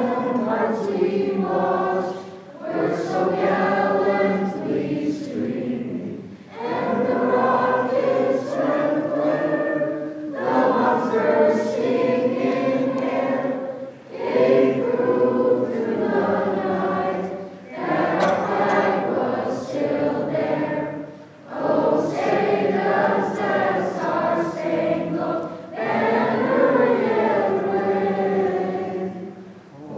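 A group of children and teenagers singing together as a choir, in sung phrases of about four seconds with brief breaths between them.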